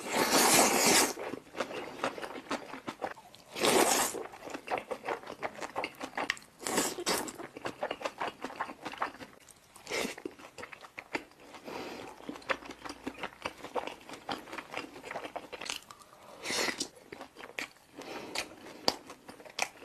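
Close-up eating sounds of black bean noodles (jjajangmyeon): a long loud slurp at the start, then wet chewing with many small clicks, broken by a few louder mouthfuls about 4, 7, 10 and 16 seconds in.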